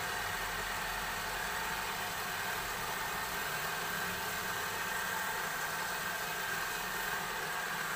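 Wood lathe running steadily, spinning a long wooden spindle, with a steady hiss of a hand-held pad rubbing along the turning wood.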